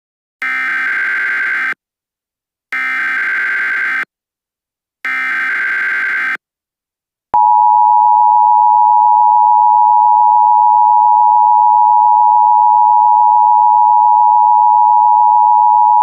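Emergency Alert System broadcast header: three short bursts of SAME digital data tones, each about a second and a half long with brief gaps, then the steady two-tone EAS attention signal starting about seven seconds in and holding on. The sequence announces an emergency alert message about to be read.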